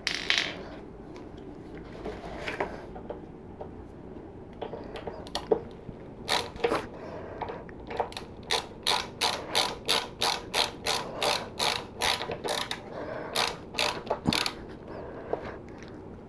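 Hand-held multi-tool screwdriver ratcheting as screws are driven in by hand: a few scattered clicks at first, then a steady run of about two clicks a second from about six seconds in until near the end.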